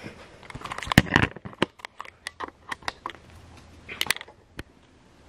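Handling noise: an irregular scatter of sharp clicks and small knocks, loudest about a second in, with another cluster around four seconds in.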